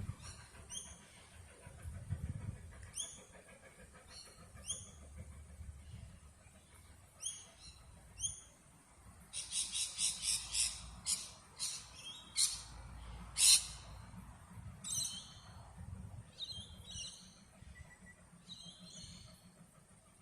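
Birds calling: short chirping notes repeated every second or so, with a quick run of louder calls about halfway through, over a faint low rumble.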